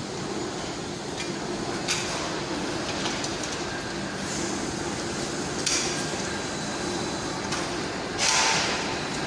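Steady industrial machinery drone with a low hum, broken by a few sharp metal clinks and knocks from steel and chains, and a brief loud hiss about eight seconds in.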